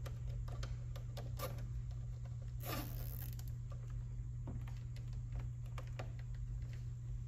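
Hands handling the mesh grille insert behind a car's front bumper: scattered light clicks and rustles of plastic and metal mesh, with one longer scrape a little under three seconds in, over a steady low hum.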